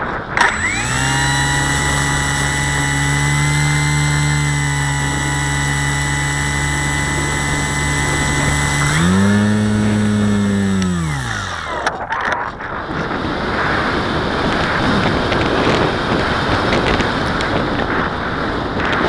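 Parkzone Radian RC glider's electric motor and propeller spinning up abruptly, running at a steady high whine for about eight seconds, then winding down in pitch and stopping as the motor is cut. For the last seven seconds, wind rushes over the plane and microphone while it glides unpowered.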